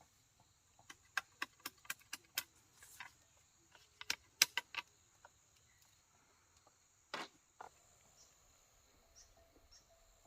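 A quick run of about ten sharp taps over the first five seconds, then two more a little later, with insects chirring faintly and steadily behind.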